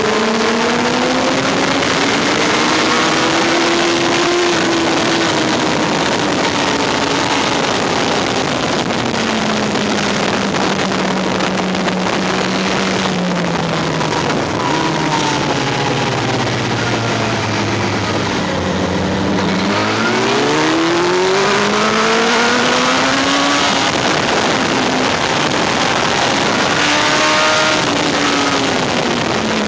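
Yamaha R1 sport bike's inline-four engine heard from onboard over heavy wind rush: revs rise, sink slowly for many seconds, then climb steeply under hard acceleration about two-thirds through and drop again near the end.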